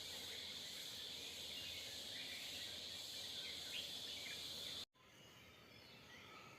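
Small birds chirping in short repeated calls over a steady, high-pitched insect drone. About five seconds in, the sound cuts out abruptly and comes back quieter, without the drone.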